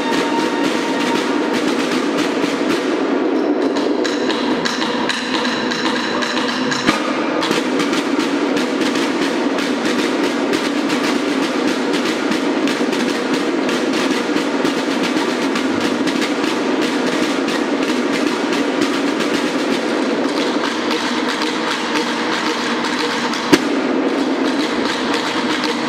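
Snare drums of a banda de guerra drum line playing a continuous, fast march cadence, a dense run of close strikes at an even level.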